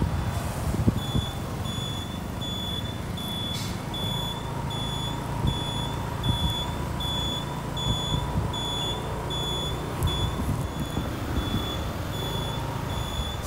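Repeated short, high-pitched electronic beeps, about two a second, starting about a second in, over a steady low rumble of street traffic.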